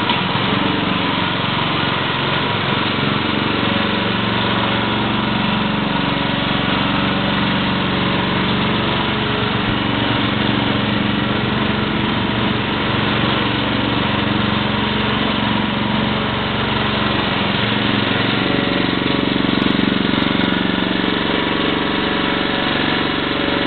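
Small gas engine of a walk-behind airless line striping machine running steadily at a constant speed while it sprays a paint stripe.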